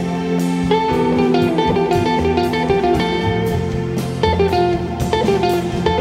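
Jazz guitar music: a guitar plucking a flowing line of notes over lower sustained notes.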